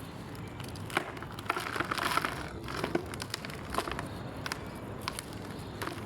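Soft chalk being crumbled and crushed, a run of small crisp crackles and snaps, busiest about two seconds in.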